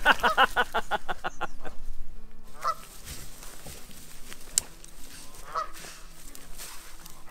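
Geese honking at a dog: a loud, rapid run of honks in the first second or two, then single, fainter honks about two and a half and five and a half seconds in.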